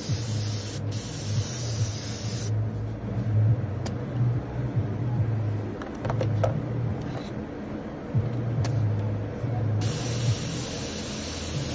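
Air compressor for an airbrush running with a steady low hum and hiss, the hum swelling and dipping.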